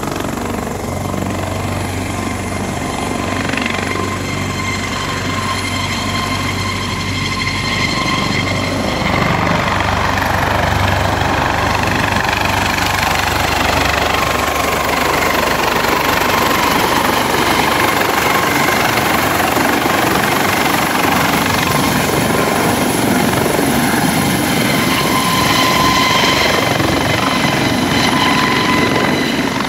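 Helicopter taking off and departing: a steady turbine whine over the rotor's noise, growing louder about nine seconds in as it lifts off, then holding steady as it flies away.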